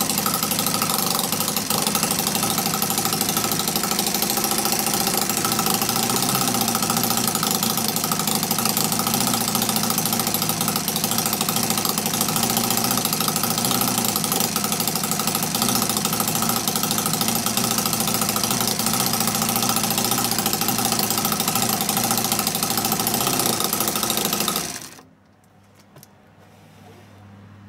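A 10cc single-cylinder, water-cooled flathead petrol model engine (Edgar Westbury's Whippet design) running steadily, then cutting out suddenly about 25 seconds in.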